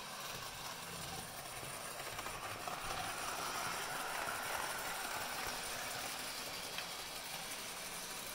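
Bachmann New York Central 4-8-4 Niagara model steam locomotive running light along model railroad track: a steady whir of motor and wheels on the rails that grows louder as it passes midway through, then fades.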